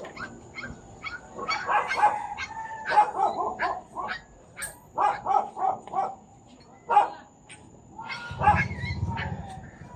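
A dog barking and yipping repeatedly in irregular bursts.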